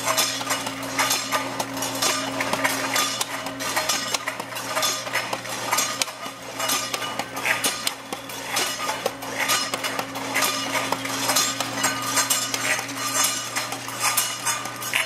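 Metal can lids clinking and clattering in automated feeding and conveyor machinery, dense irregular metallic ticks over a steady motor hum.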